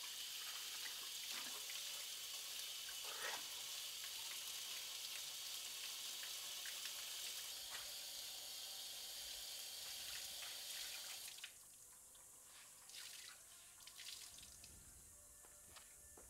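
Water running from a tap into a sink as hands wash under the flow. The flow stops sharply about eleven seconds in, and a few faint splashes and drips follow.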